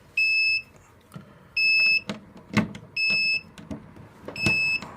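Fike Twinflex Pro fire alarm panel's internal buzzer beeping: four high-pitched beeps about a second and a half apart, which means the panel is still in its alarm state and waiting to be reset. A few sharp clicks come between the beeps as the key is worked in the panel.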